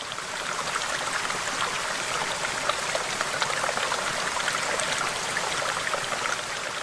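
Water cascading down a rocky waterfall: a steady splashing rush full of small droplet splashes, fading in at the start.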